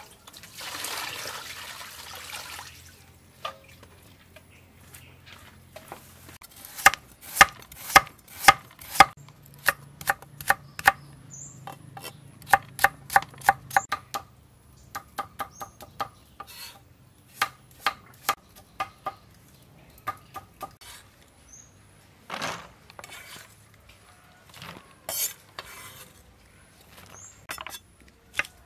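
Water poured from a dipper over lettuce for about the first three seconds, then a cleaver chopping carrot and long beans on a wooden cutting board in quick irregular runs of sharp knocks.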